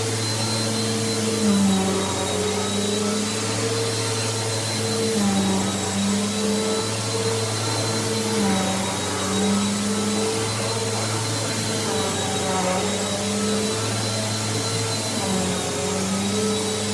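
Mainstays upright vacuum cleaner running, its motor giving a steady loud hum with a thin high whine. The hum's pitch dips slightly every second or two.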